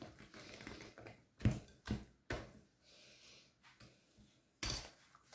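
Wire balloon whisk beating thick, stiff pancake batter in a glass bowl: soft wet squelching with a few sharp clinks of the wires against the glass, and a louder clatter near the end.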